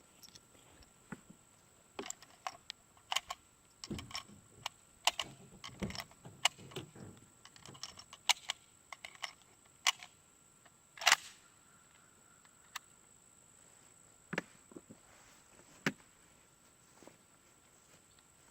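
Scattered sharp metallic clicks and clinks from rifles and cartridges being handled while reloading with target rounds, the loudest about eleven seconds in.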